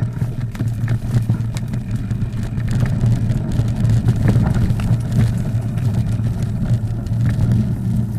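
Steady low rumble of wind buffeting a camera microphone while riding a mountain bike, with many small clicks and rattles from the bike running over a rough trail.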